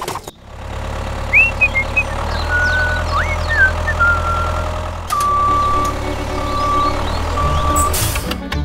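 Steady low rumble of a tractor engine, with a few short high chirps in the first half and three long, steady high beeps in the second half.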